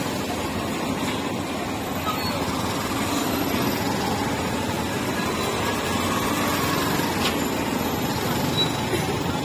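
A small engine running steadily over street noise, its pitch rising and falling once near the middle.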